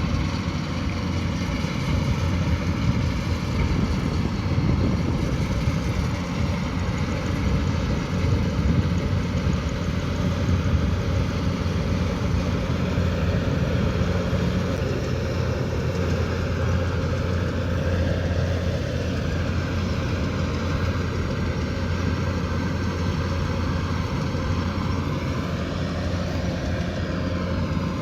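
Kubota DC108X rice combine harvester running steadily, its engine and threshing machinery making a loud continuous hum, with a higher whine that dips and rises slightly twice in the second half.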